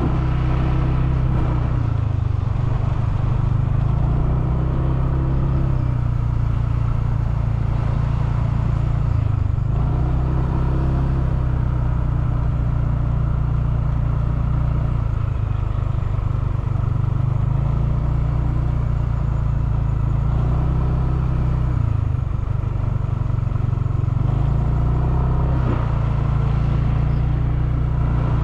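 Motorcycle engine running at low speed, a steady drone whose note rises and falls briefly every four or five seconds as the throttle is worked.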